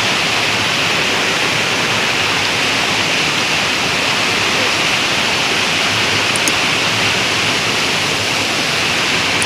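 Mountain stream rushing and splashing over boulders at the foot of a waterfall: a steady, unbroken rush of water.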